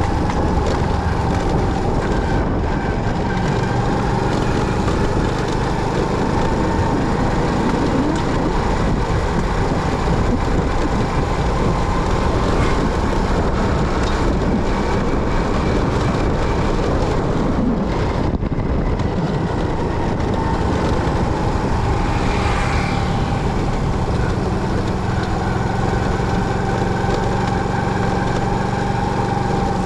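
Motorcycle engine running steadily, a constant drone with a little change in tone, and a short higher-pitched sound about two-thirds of the way through.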